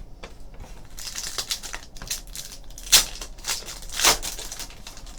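Trading card pack wrapper rustling and crinkling as a pack is opened and its cards handled, with two sharp snaps partway through.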